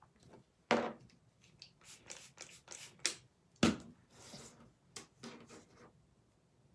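Small tins and jars of chalk paste and their lids being handled on a tabletop: a run of knocks, taps and short scrapes, the loudest a knock a little over halfway through.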